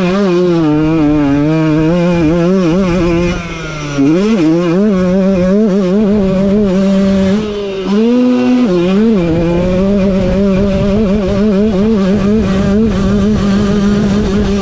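KTM motocross bike's engine under hard throttle, heard from on board, its revs wavering up and down. The throttle shuts briefly twice, about three and a half seconds and seven and a half seconds in. Each time it is opened again, and after the second the revs flare briefly to a higher steady note.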